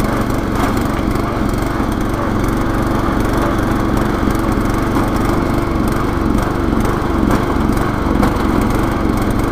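Riding lawn mower's engine running steadily under load while the mower drives at speed in sixth gear.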